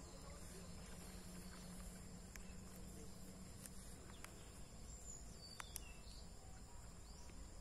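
Faint steady drone of insects, a thin high tone, over a low rumble, with a few faint clicks.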